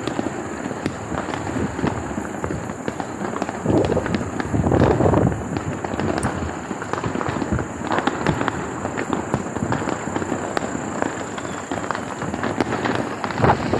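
Firecrackers crackling and popping over the din of a festival crowd, with louder swells about four and eight seconds in.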